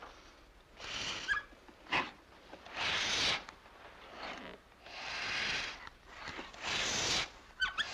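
Air being pumped in strokes about every two seconds, each stroke a hiss, with a short squeak near the end.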